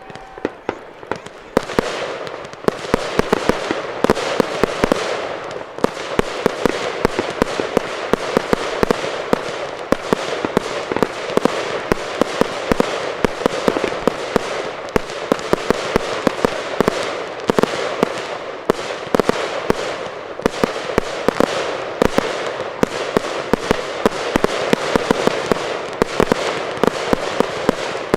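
Fireworks show in a dense barrage: many sharp bangs a second over continuous crackling, building up about a second and a half in and keeping on without a break.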